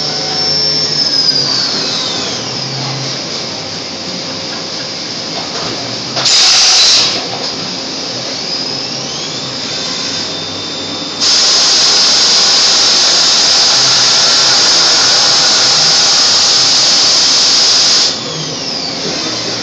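XR1000 milling machine's spindle with a 1/2-inch five-flute end mill, high-speed aluminium milling at 9000 rpm. The high whine falls in pitch about a second in, and a short loud burst of cutting comes about six seconds in. The whine rises again, then a loud, steady, high-pitched cut runs for about seven seconds before the pitch falls away as the spindle winds down.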